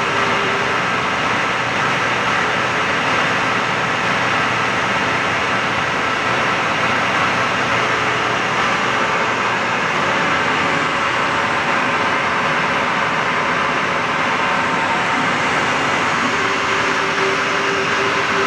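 Bridgeport Romi EZ Path 17 x 44 CNC lathe running a program, its spindle turning at about 375 rpm while the Z-axis feeds slowly: a steady, even mechanical whir from the drives, motors and spindle. A low steady tone comes in near the end.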